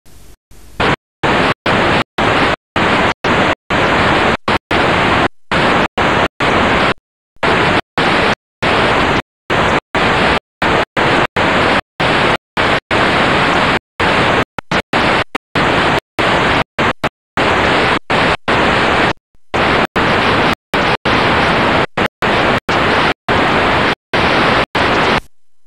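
Loud static hiss from a corrupted, garbled recording, chopped into irregular stretches by sudden dropouts to silence. A fainter hiss comes first, and the loud static cuts in about a second in and stops just before the end.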